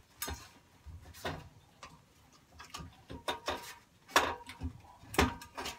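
Sheet-metal engine shroud and gas tank of a 1953 Gravely Model L being worked loose and lifted off: scattered metal clunks and rattles. The two loudest come about four and five seconds in, each ringing briefly.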